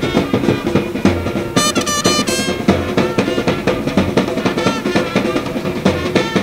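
Brass band playing with drums: a busy drumbeat throughout, with trumpet lines rising above it about a second and a half in.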